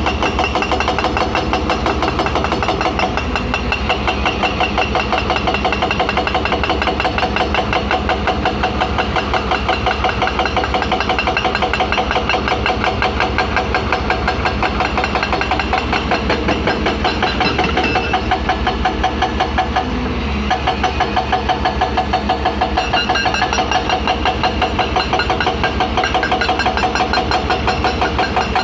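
Hydraulic rock breaker on an excavator hammering rock: a steady, rapid pounding of about five blows a second over the machine's diesel engine, easing briefly about twenty seconds in.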